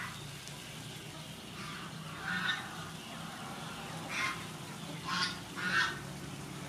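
Domestic waterfowl calling off-camera: four or five short calls, about a second apart, starting about two seconds in.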